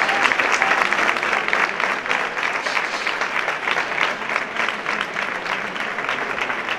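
A large crowd applauding, many hands clapping at once in a dense, steady patter that eases slightly toward the end.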